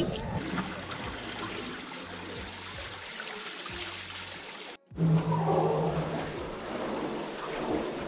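Shallow water trickling and running over rocks in a steady wash. A little past halfway it cuts out for a moment, then resumes with a steady low hum under it.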